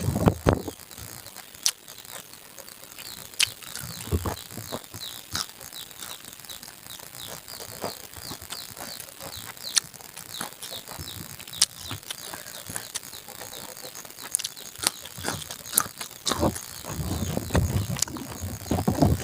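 Mukbang eating sounds: chewing, with sharp clicks and taps of a spoon on a plate and a few low handling thuds. Faint, short, high chirps repeat in the background through the middle.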